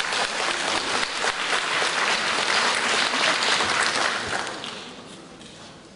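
Audience applauding in a concert hall, a dense patter of many hands clapping that dies away about four to five seconds in.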